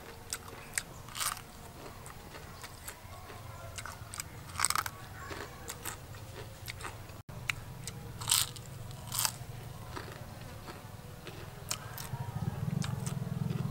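Crisp crunching bites and chewing of a fried, breaded chicken Kiev, with a handful of louder crunches spread through, over a low steady hum.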